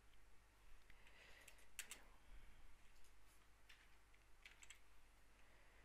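Faint keystrokes on a computer keyboard: a few scattered key presses, clustered around two seconds in and again between three and five seconds in.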